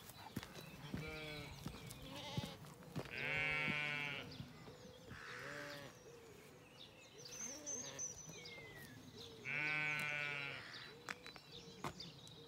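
Zwartbles sheep bleating: two long, deep bleats about three and a half and ten seconds in, with shorter, higher calls between them. Birds chirp faintly in the middle.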